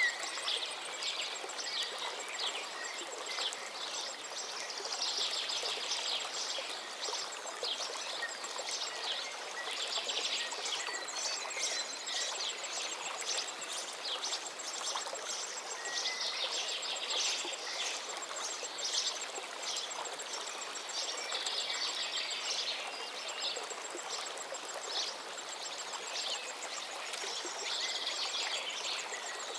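Birds chirping and calling busily, many short notes throughout, over a steady outdoor background hiss.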